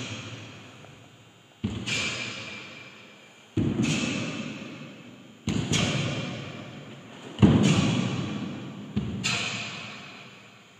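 Heavy thuds about every two seconds, each ringing out slowly; the loudest comes about halfway through and a doubled one near the end.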